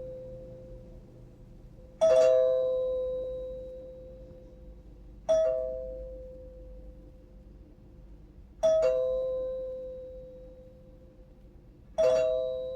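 Two-tone door chime sounding ding-dong four times, about every three and a half seconds: each time a short higher note drops to a lower one that rings out and fades.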